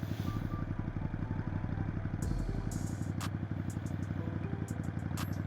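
Motorcycle engine running steadily with an even, rapid throb and no change in revs.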